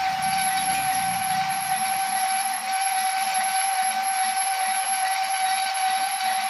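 Metal lathe running with its large chuck spinning: a steady high whine over a constant hiss.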